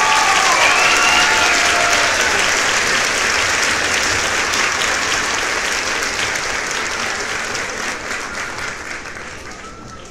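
Crowd applause, with a few voices calling out at the start, slowly fading down near the end.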